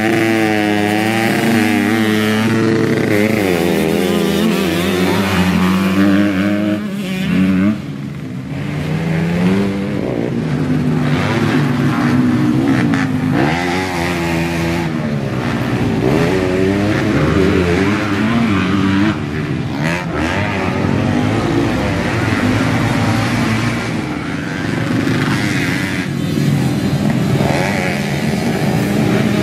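Kawasaki Ninja motorcycle engine in a trail-bike frame, revved up and dropping back repeatedly, its pitch climbing and falling over and over, with a brief dip in level about seven and a half seconds in.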